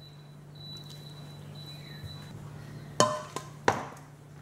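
A metal serving spoon knocking three times against stainless steel cookware about three seconds in, each knock sharp with a short metallic ring.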